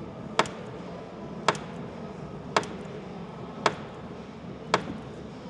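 Jeep Gladiator front door check clicking as the door is worked, five sharp clicks about one a second. The noise comes from inside the worn door check.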